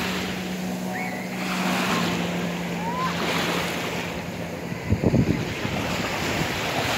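Small waves breaking and washing up over a shelly beach, swelling and ebbing. A faint steady drone stops about four seconds in, and wind buffets the microphone in a short burst about five seconds in.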